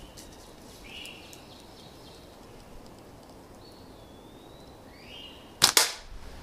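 Old tube-band slingshot fired: one sharp, doubled crack about five and a half seconds in as the rubber tubes are released. Before it, birds chirp and whistle in the woods.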